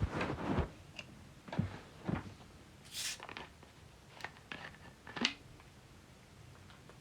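A man's stomach growling in short, irregular gurgles, picked up close on the microphone. There is a brief hiss about three seconds in and a couple of small clicks near the end.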